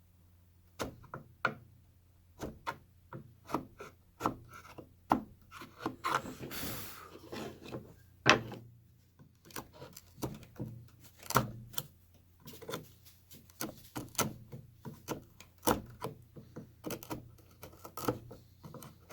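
Wood chisel cutting the shoulders of hardwood apron boards: a run of irregular sharp knocks and scrapes of steel on wood, with a longer rasping scrape about six seconds in.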